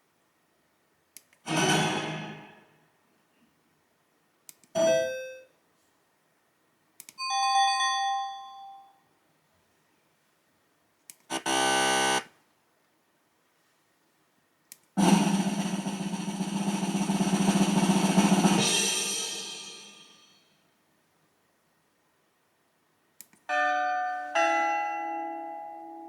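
A sound-effect player kit plays six short sound effects one after another, each preceded by a faint click. They include a noisy burst, a falling tone, a bell-like chime, a buzz and a long noisy effect of about five seconds, and they end on a two-tone chime.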